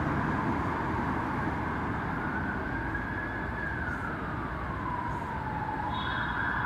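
Emergency vehicle siren wailing, one slow rise and fall in pitch, then switching to a higher steady tone near the end, over the steady rumble of passing road traffic.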